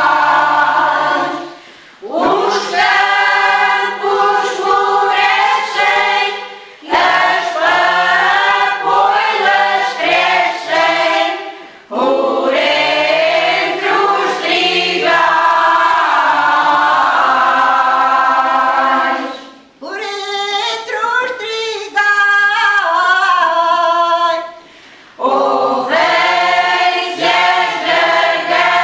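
Women's choir singing cante alentejano unaccompanied, in long phrases with short breaks between them.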